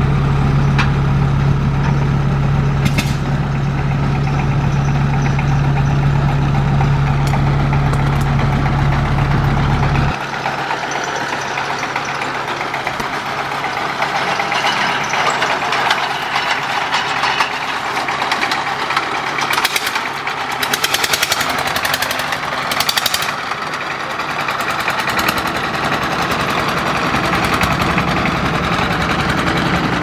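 An engine idling with a strong, steady deep hum, which cuts off abruptly about a third of the way in. Then a long-tail boat engine runs at the stern of a steel ferry barge, its propeller churning the water.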